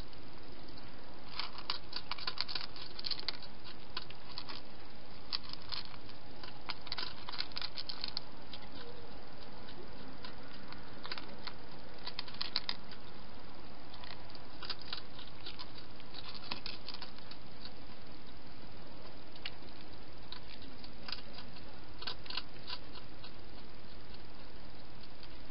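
Hedgehog chewing and crunching food at a dish: irregular bursts of rapid, crisp clicks, several seconds apart.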